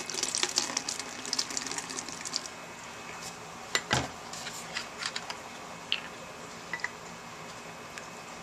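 Isopropyl alcohol poured from a measuring cup through a plastic funnel into an empty plastic dish-soap bottle, splashing for about two and a half seconds. Then a single knock about four seconds in and scattered light clicks as the bottles are handled.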